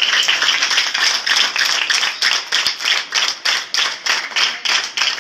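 A crowd of schoolchildren clapping: scattered applause that settles, about two seconds in, into rhythmic clapping in unison at about three claps a second.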